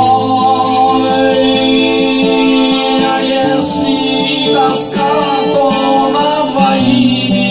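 A man singing to his own acoustic guitar, strumming chords whose bass notes change a couple of times.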